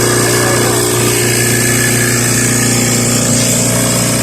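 Cold room refrigeration compressor running with a steady, unbroken hum.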